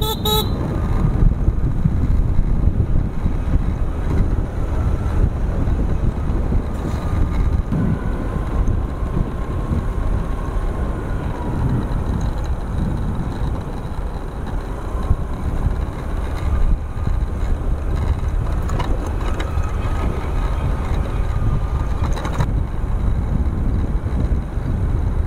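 Motorcycle riding at steady speed: a constant rush of wind on the microphone, mostly low rumble, with the bike's engine and road noise underneath. A short knock sounds right at the start.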